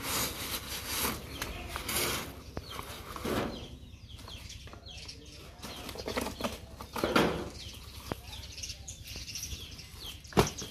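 Cardboard mailing tube and a fishing rod bag rustling and scraping in a series of noisy bursts as the bag is pulled out and the cardboard is torn open, with a sharp knock near the end.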